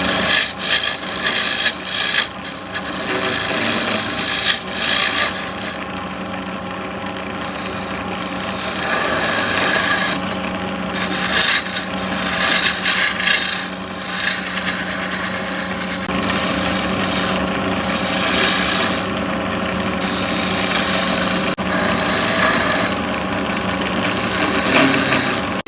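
CNC woodworking machine cutting a wooden sofa leg: a steady machine hum under a rasping cutting noise that comes and goes in bursts as the tool works the wood.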